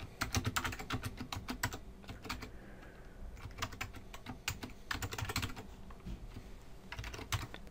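Typing on a computer keyboard: quick runs of keystrokes for about the first two seconds, then shorter bursts with pauses between them.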